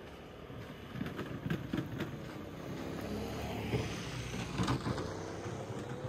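A motor vehicle passing close by, its engine note rising near the end, with footsteps.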